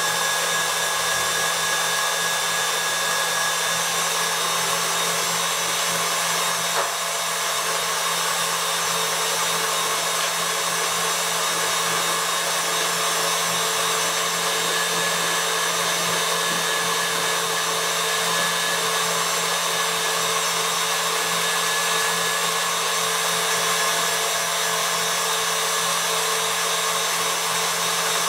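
KitchenAid stand mixer running steadily, its wire whisk beating an egg-white meringue with sugar syrup and gelatin into marshmallow mixture. A constant motor hum and whine.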